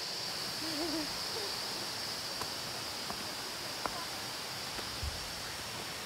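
Insects buzzing steadily in forest undergrowth, a high continuous drone. About a second in there is a short wavering low call, and a few faint clicks of footsteps on the trail follow.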